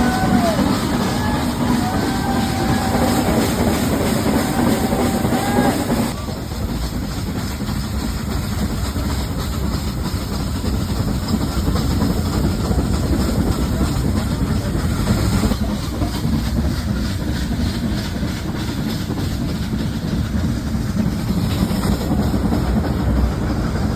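Nilgiri Mountain Railway train running: a steady rumble and rattle of the coaches on the track. In the first few seconds there are a few thin squeals that rise and fall, and about six seconds in the sound suddenly drops a little and stays duller.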